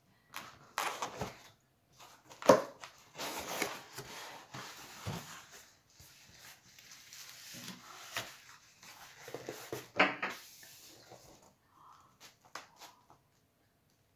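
Large cardboard pizza box handled and opened on a table: sharp knocks, the loudest about two and a half seconds and ten seconds in, with scraping and rustling of cardboard between them. It quietens to a few faint taps near the end.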